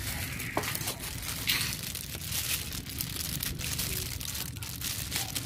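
Thin disposable plastic gloves crinkling as hands handle and trim the stems off small bitter eggplants (Thai eggplants), with scattered small clicks and snaps throughout.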